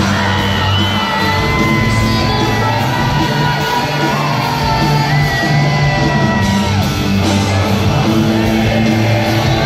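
Live rock band playing with electric guitars, bass and drums while a male lead singer holds long high notes, heard from within the audience in a large hall with crowd voices shouting along.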